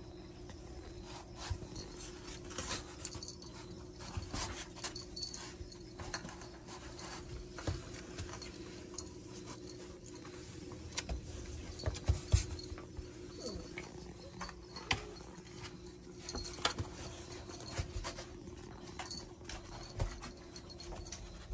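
Puppies wrestling in play: scattered scuffles, knocks and clicks, with the metal tags on a collar jingling, the loudest knocks about twelve seconds in. A steady low hum runs underneath.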